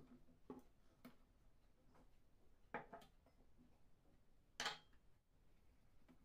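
A metal mesh sieve and a small dish knocking and clinking against a mixing bowl as flour and baking powder are tipped in for sifting. There are four short knocks, the loudest about four and a half seconds in, over near silence.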